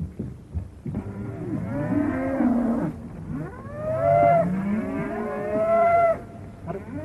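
A herd of cattle mooing, several long calls overlapping, from about a second in until about six seconds in.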